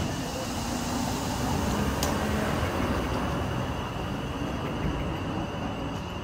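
Steady low rumble of street traffic, with a faint, steady high tone over it.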